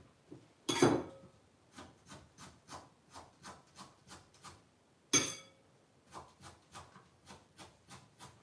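Kitchen knife chopping spring onions on a plastic cutting board, in even strokes about three a second. The chopping comes in two runs, each opened by a louder noise.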